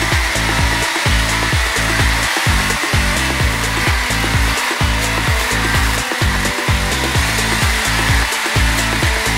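HO scale model trains running on sectional track laid on a wooden floor: a steady whirring rumble of motors and wheels with a fast run of fine clicks.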